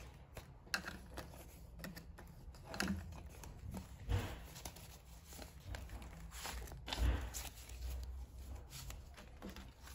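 Paper dollar bills rustling and flicking as a stack of cash is handled and sorted by hand, with two dull thuds about four and seven seconds in.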